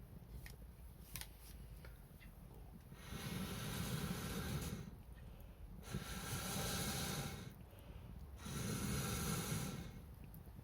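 A wood fire being blown on in three long breaths, each about a second and a half, with faint crackles from the burning wood between them.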